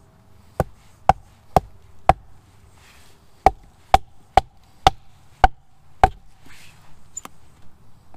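Hatchet chopping into a stick of wood held upright against a log: ten sharp strikes, each with a brief ring, about two a second, in a run of four, then a short pause and six more.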